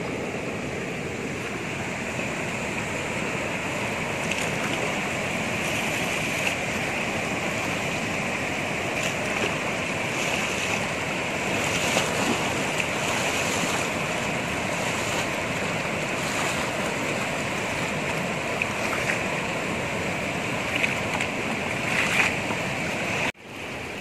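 River water rushing steadily over rock rapids, with a brief break near the end.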